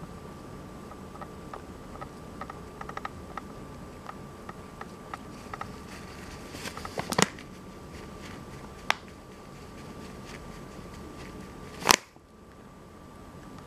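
A rabbit nosing and nibbling at a plastic bag of oats, giving small clicks and two louder crinkles, about seven and twelve seconds in. Under it runs a steady rattling hum from the camera itself.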